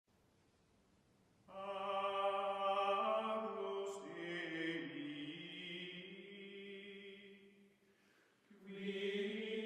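Music of sustained, chant-like voices: after a second and a half of near silence, one long held phrase that slowly fades, and a second phrase starting near the end.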